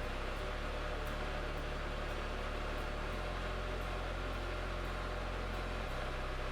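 Metal lathe turning an epoxy-resin blank: a steady motor hum with cutting hiss. The low hum steps louder about three seconds in and drops back near the end.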